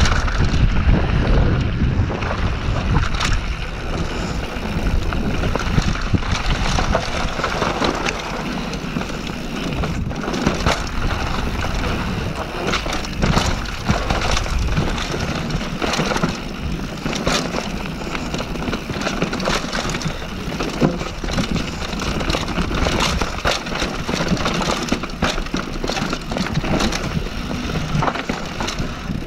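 Mountain bike riding fast down a gravel and rocky dirt trail: tyres crunching and rolling over stones, with frequent rattles and knocks from the bike at each bump over a steady rush of wind noise.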